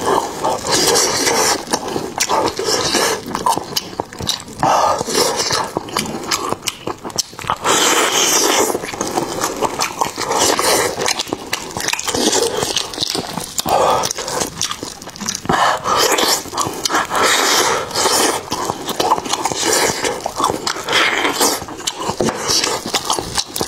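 Close-miked ASMR eating sounds: wet chewing and mouth noises as a man eats a saucy stewed chicken leg, with the meat being pulled apart in gloved hands. The sound is a dense, irregular run of wet clicks and smacks with no pauses.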